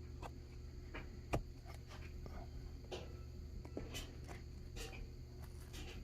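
Flathead screwdriver pressing rubber spline into a window screen frame's groove: scattered small clicks and scrapes, with one sharper tap about a second and a half in, over a low steady hum.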